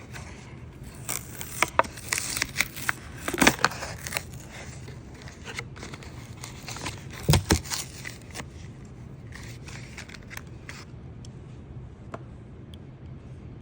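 Hot Wheels blister pack being cut and torn open: irregular snips, crackles and clicks of plastic and card, busiest in the first few seconds, with a loud crackle again around the middle.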